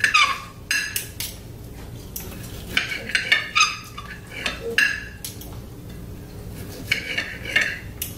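A knife and fork clinking and scraping on a ceramic dinner plate as meat is cut: repeated short, ringing clinks.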